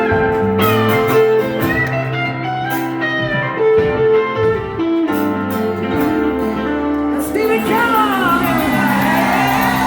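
Live rock band playing an instrumental passage led by guitar over held chords. The sound gets busier, with wavering notes, in the last couple of seconds.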